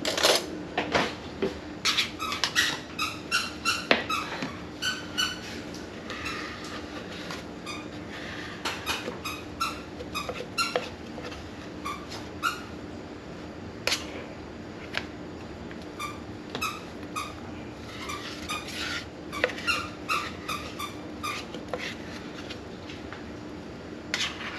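Metal spoon scraping soft-frozen ice cream out of an ice cream maker's freezer bowl, giving runs of short squeaks with pauses between scoops. A clatter of cutlery from a drawer comes right at the start, and a steady low hum runs underneath.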